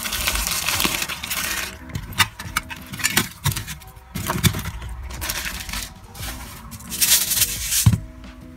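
Thin plastic vacuum packaging crinkling and tearing as it is pulled off a frozen salmon steak, in bouts with sharp clicks and knocks, stopping near the end. Quiet background music runs underneath.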